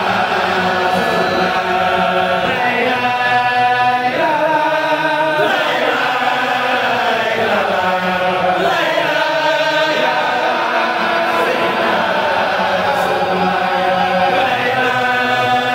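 A large group of men chanting religious verses together in unison, in long held notes that slide from pitch to pitch without pause.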